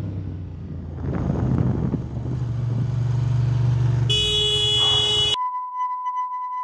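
Motorcycle engine running with wind on the microphone, then about four seconds in a horn sounds for over a second, cut off abruptly by a steady high censor bleep.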